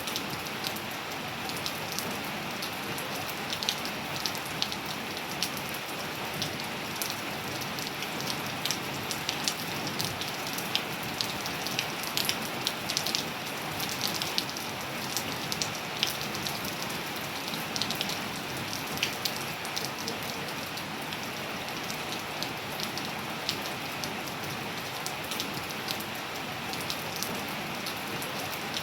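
Steady rainfall: an even hiss with many separate drops ticking and pattering on a hard surface close by.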